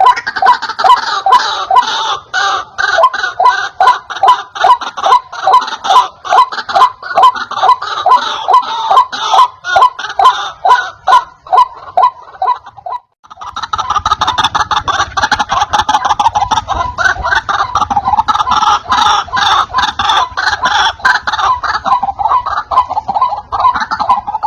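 White-breasted waterhen (ruak-ruak) calling loudly in a fast, steady series of repeated notes, about two a second. The calling breaks off briefly about halfway through, then carries on.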